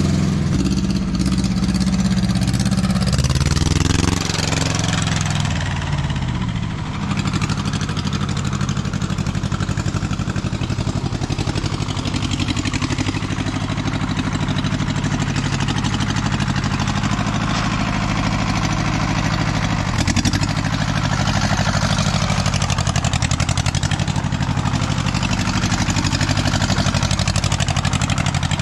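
Mitsubishi compact diesel tractor engine running as the tractor is driven. Its note shifts and dips briefly about five to seven seconds in, then holds steady.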